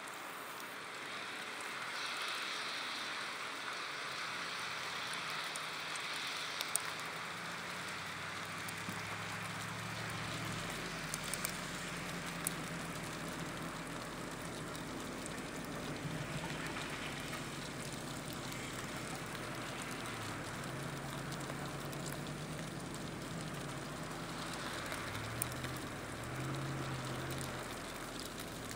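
The distant, low drone of an approaching train's diesel-electric locomotives comes in about a third of the way through, wavering in pitch, over a steady hiss.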